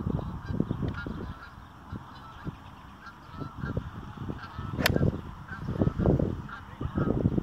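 An 8-iron striking a golf ball off grass: one sharp, crisp click about five seconds in. Around it, irregular low rumbling gusts and repeated short high calls.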